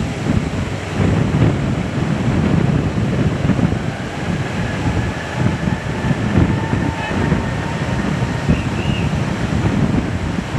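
Wind buffeting the microphone in uneven gusts. A faint, steady jet-engine whine comes through from about four seconds in and fades again near the end.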